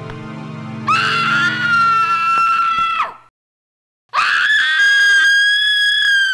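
A woman screaming in horror, twice: two long, shrill screams with a second of silence between them. Low music plays under the start of the first scream.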